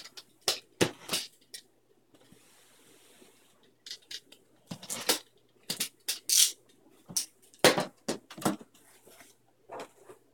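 Cardboard box being cut open along its taped seam and its flaps handled: a string of short scrapes, clicks and cardboard knocks, with a faint hiss of sliding about two seconds in.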